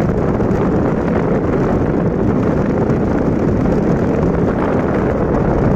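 Car driving at speed with wind buffeting the microphone, mixed with road and engine noise: a loud, steady rush.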